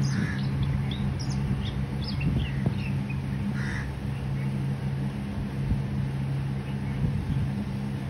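Oriental magpie robin giving short, high chirps and whistles with a couple of harsher rasping notes, the calls dying away about halfway through. Under it a steady low machine hum runs throughout.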